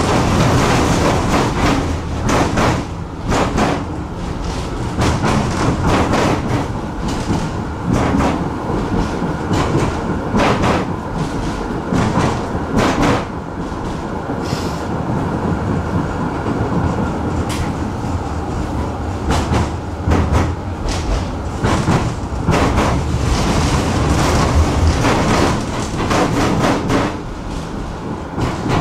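Tram running along the track, heard from inside the car: a steady rumble of wheels and running gear, broken by frequent irregular sharp knocks from the wheels on the rails.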